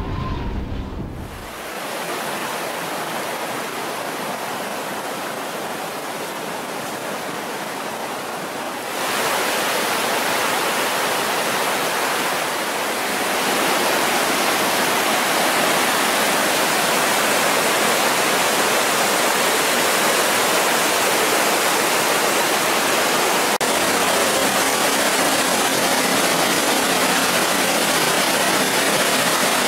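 Mountain river rushing over rocks as white-water rapids, a steady dense rushing that gets louder about nine seconds in and again a few seconds later. A short stretch of music fades out in the first second or two.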